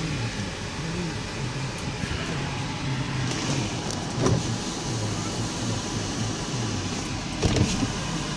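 Bentley Arnage's electric power windows running, their motors whirring over the steady blower of the air conditioning on full, with a brief knock about four seconds in and another near the end.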